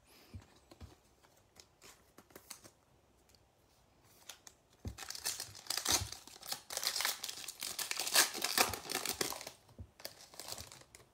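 Light clicks of cards and pack being handled, then, about five seconds in, several seconds of loud crinkling and tearing as the wrapper of a Donruss basketball trading-card pack is ripped open.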